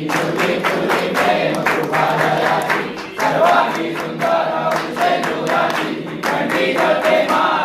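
A group of voices singing a devotional chant over a steady beat.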